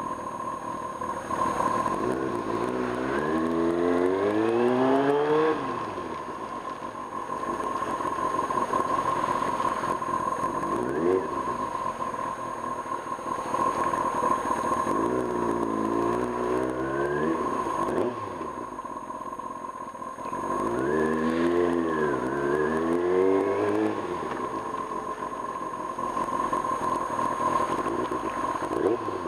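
1995 Kawasaki ZX-6R's inline-four engine being ridden, revving up under acceleration and easing off several times, with a constant high whine underneath.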